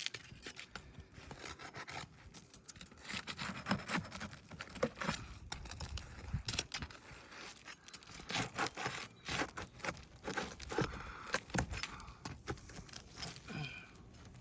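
Irregular scraping, shuffling and clicking from footsteps and hands working on a shingle roof.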